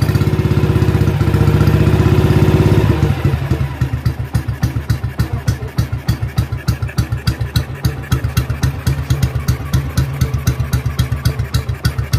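Kawasaki 250 Meguro SG's single-cylinder four-stroke engine running moments after starting: held at fast revs for about three seconds, then dropping to a slow, even idle with each firing stroke distinct. The bike has just been repaired and runs well.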